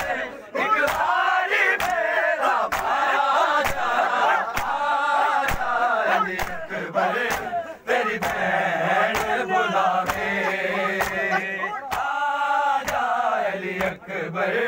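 Crowd of men chanting a noha in unison, with sharp rhythmic hand slaps on the chest (matam) keeping time about twice a second.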